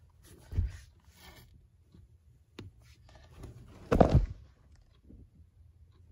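Two dull thumps over a faint low hum, a short one about half a second in and a heavier, louder one about four seconds in.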